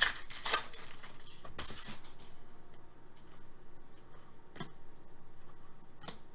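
Trading cards and packs being handled: a few short rustles and scrapes in the first two seconds, then scattered light clicks and ticks.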